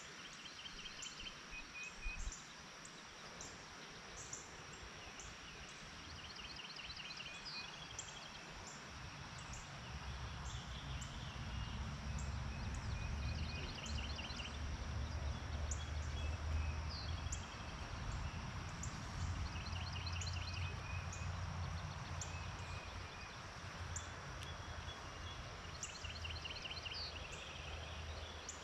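Outdoor ambience of songbirds singing short trilled phrases over and over, with a thin high chirp repeating about once a second. A low rumble comes in about a third of the way through and carries on.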